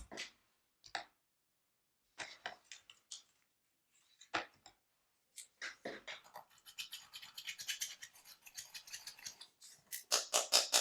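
Slime being worked by hand, making sticky clicks and crackles: scattered pops at first, a dense run of crackling from about the middle, and louder clicks near the end.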